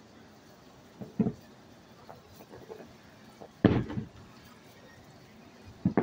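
Aerial fireworks shells bursting with sharp booms: a quick pair about a second in, the loudest a little past halfway, and another pair near the end.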